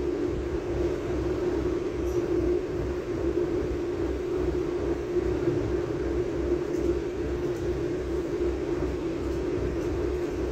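Inside a Renfe Cercanías commuter train in motion: a steady running drone with a low, evenly repeating pulse beneath it.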